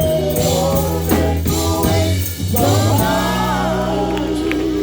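Live gospel group singing long held notes in harmony over band accompaniment, with a steady low bass chord underneath.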